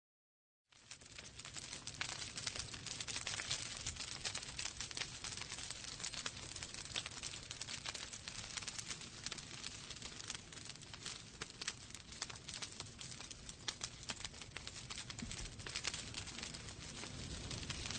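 Wood fire crackling in a fireplace: dense, irregular sharp crackles and pops over a low steady rumble. It starts just under a second in and builds over the next second.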